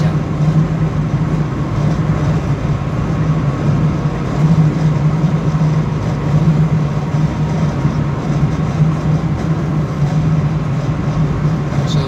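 Cabin noise of a 2.0-litre Subaru Forester cruising on the road: a steady low engine drone under even tyre and wind rush.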